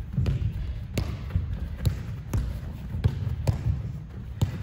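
Soccer ball being kicked and received on artificial turf during a passing drill, mixed with quick running footsteps: about seven sharp thumps at uneven half- to one-second intervals.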